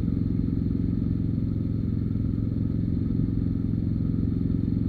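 Engine of heavy machinery running steadily with an even low throb, holding the same speed throughout.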